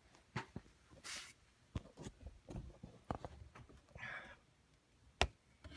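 Faint scattered clicks, scuffs and rustles, with a short hiss about a second in and a sharp knock near the end: handling noise from a phone camera carried by someone getting under the vehicle.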